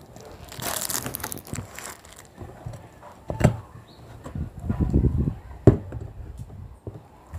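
Plastic wrapping crinkling as biscuits are put into a plastic jar, then handling knocks and thumps as the jar's screw lid is put on and the jar is moved, with two sharp knocks.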